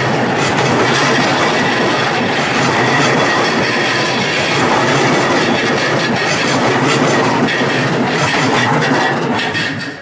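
JR Kawagoe Line E233-series electric train passing close by: wheels clattering over the rail joints with a steady running rumble that dies away near the end as the last car clears. A level-crossing alarm rings faintly beneath it.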